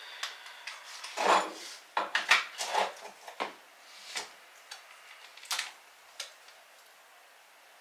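Clinks, clicks and rubbing as ceramic tiles and a tape measure are handled and set down on a countertop. The sounds are busiest and loudest from about one to three seconds in, then thin to a few light taps.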